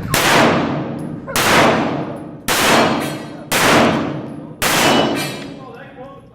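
Five pistol shots fired at an even pace, about one a second, each followed by a long ringing decay.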